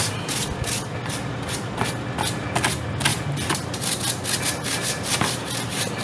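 Stiff-bristled coil brush scrubbing a dust-clogged freezer condenser coil, bristles rasping across the fins in quick repeated strokes, about two to three a second.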